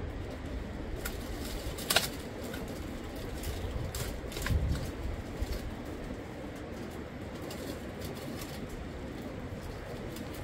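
Steady rushing of a fast river, with a few sharp clicks and knocks over it; the loudest click comes about two seconds in.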